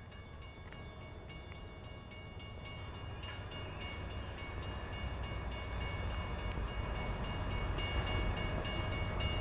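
An unseen train approaching on the line, its low rumble growing steadily louder, with steady high-pitched tones ringing over it that strengthen about three seconds in and again near the end.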